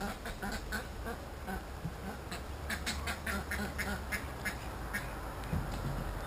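Ducks quacking in a rapid, repeated series of short calls, busiest from about two to four and a half seconds in.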